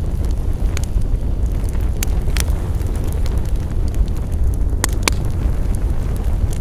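Wood fire crackling, with a steady low rumble from the flames and several sharp pops from the burning wood.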